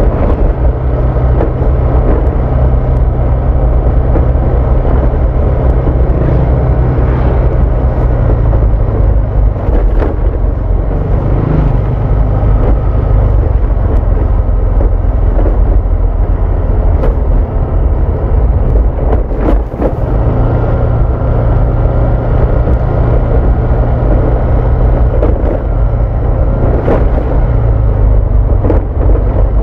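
Honda Vario 160 scooter's single-cylinder four-stroke engine running steadily under way, heard from on board with road noise. The engine note drops twice, about eight and nineteen seconds in, and picks up again each time.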